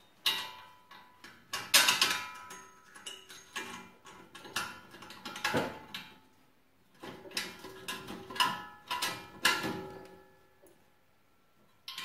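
Irregular metallic clanks and clicks of steel parts and hand tools being handled while a steel mounting plate is fitted and bolted to a lawn tractor's rear hitch; some strikes ring briefly.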